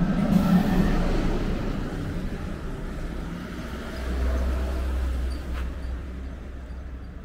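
Road traffic: vehicle engines running past on a street, with a heavier low rumble from about four seconds in.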